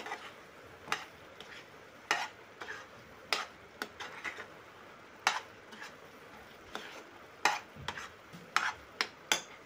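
A metal spoon stirring a thick desiccated-coconut, mawa and sweetened-milk mixture in a pan, scraping and knocking against the pan at irregular moments about once a second. A faint sizzle of the cooking mixture runs underneath.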